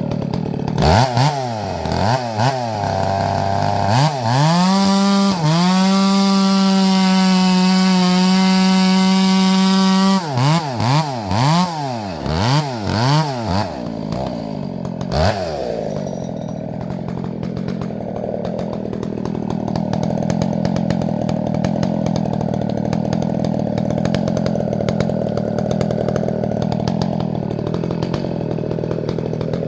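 Two-stroke chainsaw with a square-ground chain, revved up and down several times, then held at full throttle for about six seconds. It is blipped again a few more times and settles to a lower, rougher running sound for the rest.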